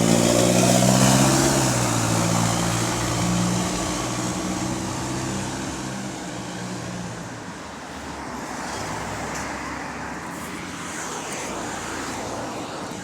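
Bus engine with an exhaust leak running loud under power, then fading steadily as the bus moves away, leaving a low traffic hum.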